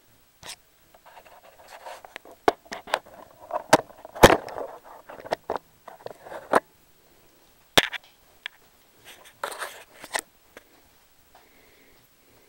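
Handling noise: scattered clicks, knocks and scrapes as hands and the camera move about the outboard's flywheel. The sharpest clicks come about four and eight seconds in, and it goes quiet for the last couple of seconds.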